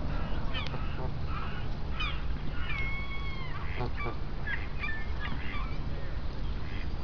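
Waterfowl calling: a string of short honks and squawks, with one longer drawn-out call about three seconds in, over a steady low rumble.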